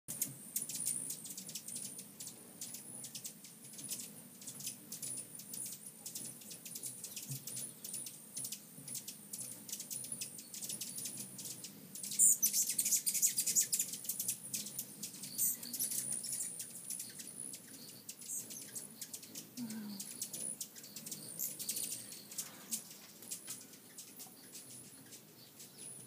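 Hummingbirds at a feeder: many rapid, high-pitched chirps and ticks, with a louder dense burst of high chirping and wing buzz about halfway through.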